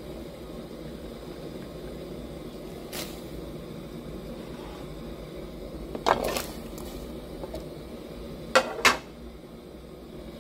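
Pot of vegetable soup on the stove with a steady low simmering rumble. A few sharp clatters against the pot break in: a faint one about three seconds in, a cluster about six seconds in, and two louder ones near nine seconds.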